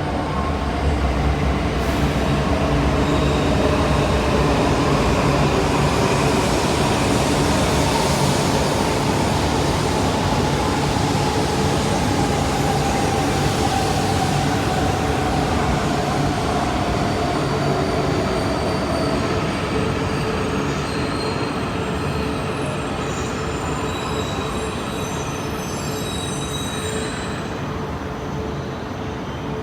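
Shinkansen train slowing into the platform: a steady rolling rumble with a motor whine falling slowly in pitch as it decelerates, then thin high brake squeals in the last several seconds as it nears a stop.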